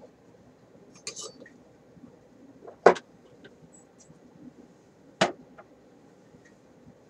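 A few sharp knocks and clinks of small hard objects being handled, three in all, the loudest about three seconds in.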